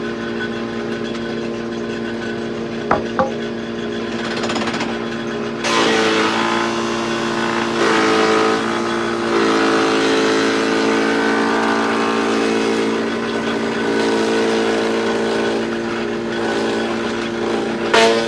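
Wood planer running with a steady motor hum. About six seconds in, the sound turns louder and hissier with shifting tones, as a board is fed through the cutterhead, and this lasts about eleven seconds. A sharp knock comes near the end.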